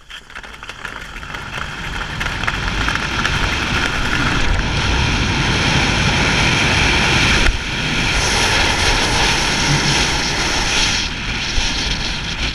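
Wind rushing over the microphone of a ski jumper's helmet camera, mixed with the skis running on the snow. It grows louder over the first few seconds as speed builds down the inrun, then holds steady through the jump, with a sudden brief dip about seven and a half seconds in and a slight easing near the end.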